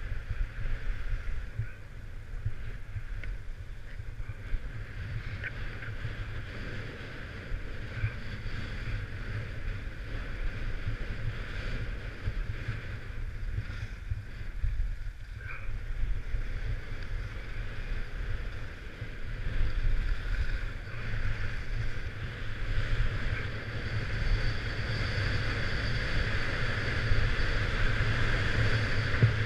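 Wind buffeting the action camera's microphone during a downhill run, over the steady hiss of sliding on packed, groomed snow. The hiss grows louder near the end as the descent speeds up.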